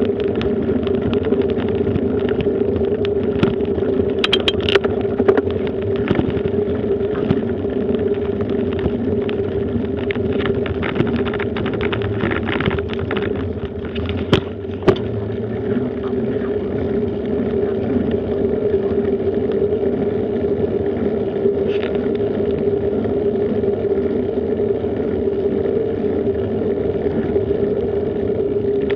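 Riding noise from a camera mounted on a moving bicycle: steady wind and tyre rumble with a constant drone, and scattered knocks and rattles in the first half.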